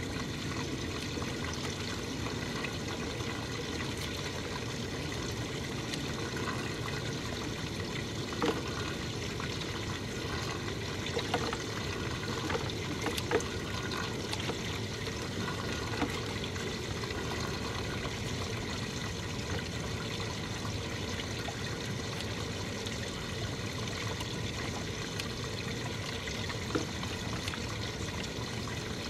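Water trickling and splashing steadily around a small anchored boat, with a few faint clicks in the middle of the stretch.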